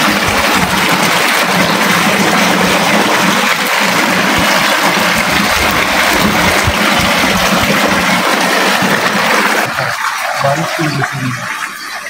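Water rushing and splashing in a loud, steady stream, falling away sharply about ten seconds in.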